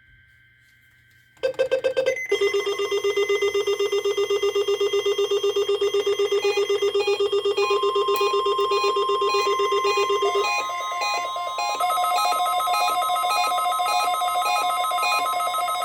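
NOAA weather radio receivers set off by the weekly test signal, sounding their alert alarms: loud, rapidly pulsing electronic beeps at several pitches that start suddenly about a second and a half in. About halfway through, the steady single-pitch weather radio warning alarm tone from the broadcast joins and holds.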